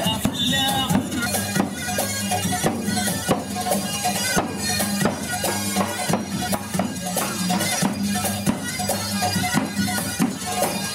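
Zorna music: loud double-reed shawms over a steady drone, with a large double-headed drum beaten in strokes throughout.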